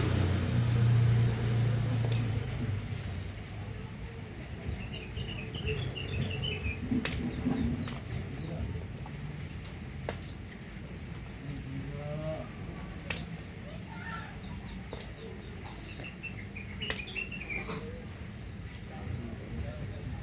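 Insects, crickets by their sound, chirping in a steady rapid high trill, with a bird chirping briefly twice and a low rumble that dies away in the first couple of seconds.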